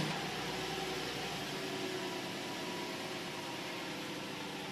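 Toyota Tarago (Previa) van's engine idling steadily, an even running hum with hiss.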